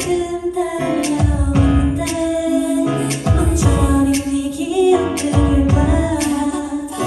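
Female pop vocal group singing over a backing track through a venue's sound system, with heavy bass beats landing in clusters about every two seconds.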